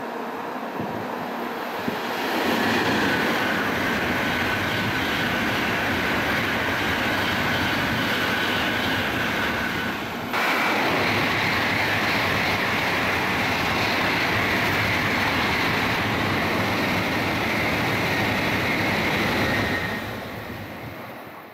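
N700-series Shinkansen bullet trains passing at high speed: a steady rushing of wheels on rail and air, with a high steady whine over it. A sudden cut about ten seconds in leads to a second passing train, which fades away at the end.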